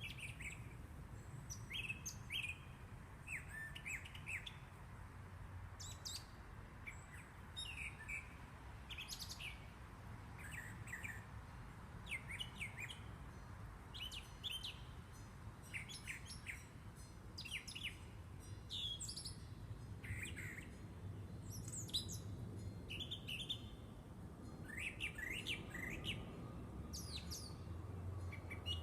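Several songbirds chirping and calling in short, overlapping phrases, with a steady low rumble underneath.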